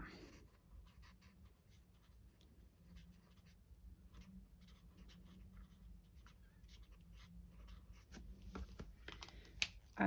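Faint scratching strokes of a Stampin' Blends alcohol marker's bullet tip on cardstock as small flowers are coloured in, over a faint steady low hum.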